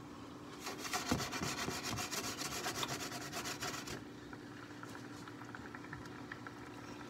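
A skillet of mushrooms in marsala wine being worked back and forth on the stove, giving a rough metal scrape from about half a second to four seconds in. After that the liquid simmers faintly with small pops.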